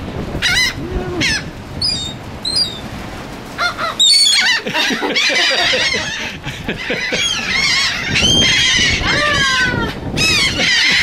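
Seagulls calling: a few separate calls at first, then a dense chorus of many overlapping calls from about four seconds in.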